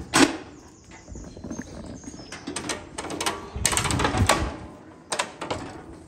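Steel bars and gates of a cattle crush clanking and rattling in several bursts as a heifer moves inside it, loudest about four seconds in.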